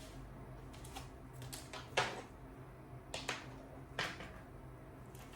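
A few light clicks and taps of small parts and tools being handled on a work surface, the sharpest about two, three and four seconds in, over a low steady hum.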